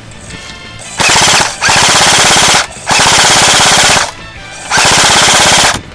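Airsoft rifle firing on full auto close to the microphone, a rapid, even chatter of shots in four bursts, the first short and the others about a second long, starting about a second in.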